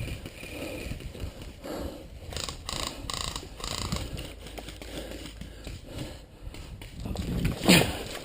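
Close handling and movement noise: irregular rustling and scraping of gear and clothing against the mic, with a louder scrape near the end.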